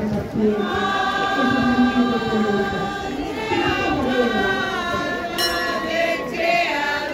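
Many voices singing a religious hymn together in long held notes, like a choir.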